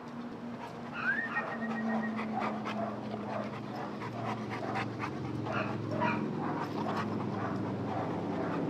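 Saint Bernard panting with its tongue out, about three breaths a second, over a steady low hum. A short rising whistle sounds about a second in.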